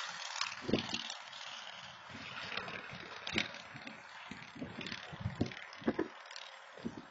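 Road traffic passing as a steady hiss, with wind buffeting the outdoor camera's microphone in irregular low gusts.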